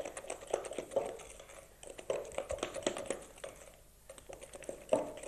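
Wooden spoon beating a thick batter in a glass bowl by hand: quick, irregular clicks and taps of the spoon against the glass, with a sharper knock near the end.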